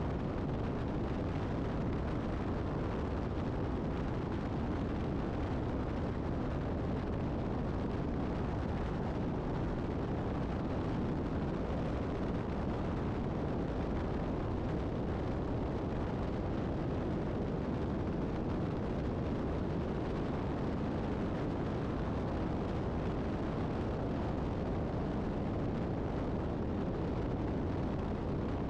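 Steady low roar of highway driving at speed: tyre and wind noise, with a semi truck pulling a dump trailer running alongside. The level stays even throughout, with no horn, gear change or engine note standing out.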